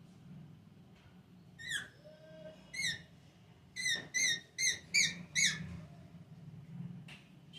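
Pet parrot giving short, high, squeaky chirps: two single calls, then a quick run of five about four seconds in.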